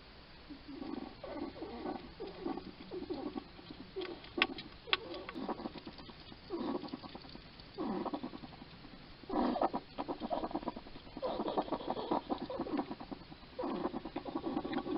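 A hedgehog's noisy, rasping breathing and snuffling in irregular bursts of about a second, with two sharp clicks near the middle. The owner puts the noisy breathing down to scarring on its lungs from an earlier respiratory infection or lungworm.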